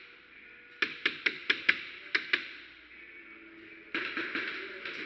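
Airsoft guns firing: a quick string of about seven sharp shots, roughly four a second, starting about a second in, then a denser clatter of shots near the end.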